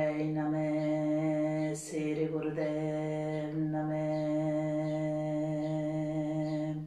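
A woman chanting a mantra in a low voice on one long, steady note, with short breaks for a new syllable or a breath about two and three and a half seconds in. The chant stops at the very end.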